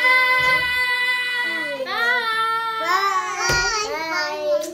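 A child's high voice singing, holding long drawn-out notes that glide between pitches, with one sharp thump about three and a half seconds in.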